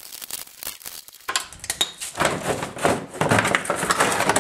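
Rapid clattering and rattling of hard objects being handled: a quick, irregular run of clicks and knocks that gets much busier about a second in.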